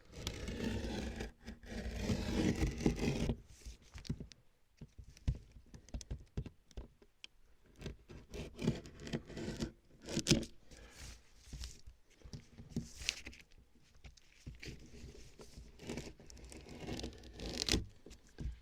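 Plastic sheeting being cut and torn, a long dense scraping stretch over the first three seconds followed by short scrapes, rustles and crinkles as the plastic is worked and handled.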